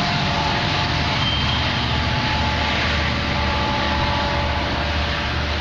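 Diesel engine of a freight train locomotive running with a steady low rumble and a hiss of noise over it as the train approaches.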